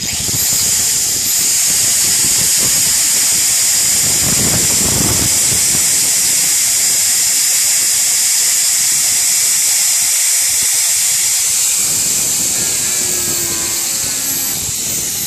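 Small electric hand grinder switched on and running steadily with a loud, high-pitched whine and hiss, powered from a micro hydro generator's 120-volt inverter; near the very end the whine starts to fall as it winds down.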